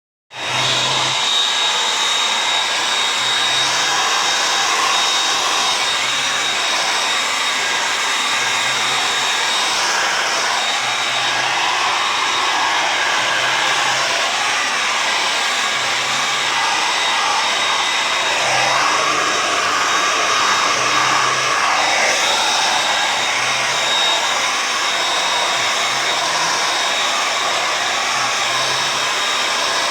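Handheld hairdryer blowing steadily, a constant rush of air with a thin high whine from its motor.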